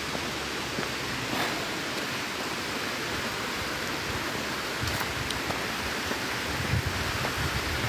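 Steady rushing of water falling at a waterfall, an even noise with no breaks.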